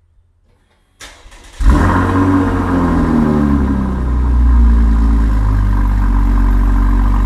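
Cold start of a 2019 Chevrolet Camaro's 3.6-litre V6 through a Borla ATAK axle-back exhaust. About a second of starter cranking, then the engine catches with a loud rev flare whose pitch falls and settles into a steady, loud high idle.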